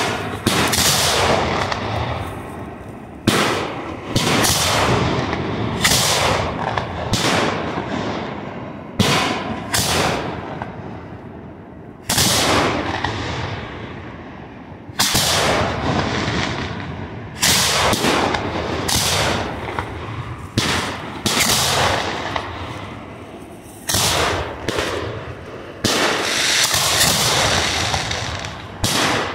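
Hand-lit fireworks shells firing from mortar tubes one after another. There are about fifteen sharp booms at uneven gaps of one to three seconds, each dying away slowly, with a steady hiss between them.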